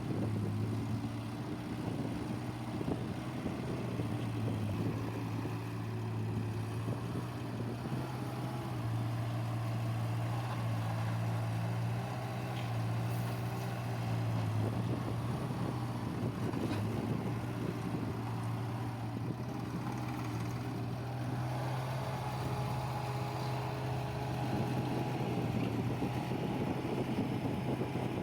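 Diesel engine of heavy earthmoving machinery running steadily, with its pitch shifting slightly a couple of times as the engine speed changes.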